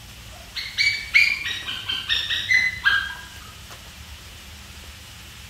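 An animal giving a rapid run of about a dozen short, high, clear calls that step up and down in pitch, stopping about three seconds in.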